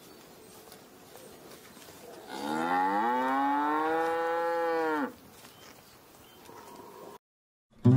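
A calf moos once: a single long call of about three seconds that rises in pitch as it starts and drops away at the end.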